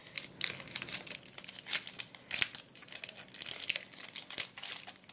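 Foil wrapper of a Pokémon trading card booster pack crinkling as it is handled and the cards are slid out of it, a run of irregular sharp crackles.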